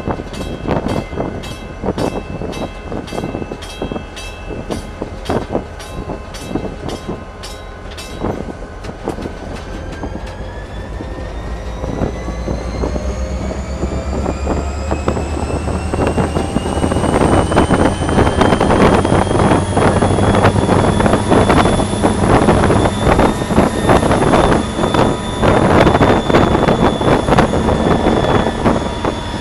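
EMD SD40-2 diesel-electric locomotive heard from inside its cab, its turbocharged 16-cylinder two-stroke engine loading up as the train gathers speed. A regular clicking of wheels over the rails fills the first several seconds. After that a whine rises steadily in pitch and levels off, while the engine grows louder.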